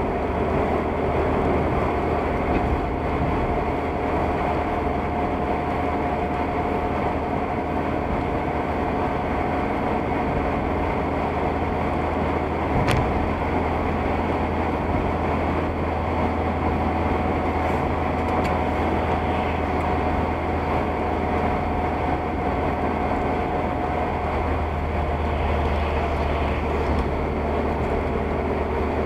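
Steady engine and tyre noise of a car driving on a wet road, heard inside the cabin through a windscreen-mounted dashcam's microphone, with a constant low hum. A single sharp click about 13 seconds in.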